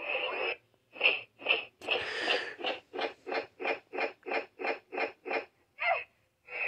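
Power Rangers Cosmic Fury morpher toy playing electronic sound effects through its small built-in speaker as its buttons are pressed: a string of short blips, a few irregular ones and then an even run of about three a second.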